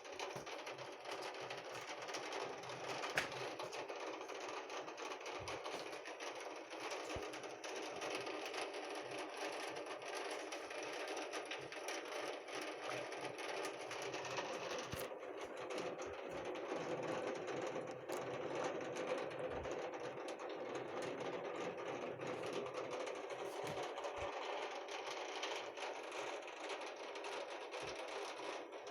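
Heavy rain falling steadily, a dense rapid ticking of drops striking a hard surface, with one sharp knock about three seconds in.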